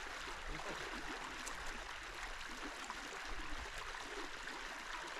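Mountain river water rushing steadily over a shallow, stony stretch: an even wash of flowing-water noise.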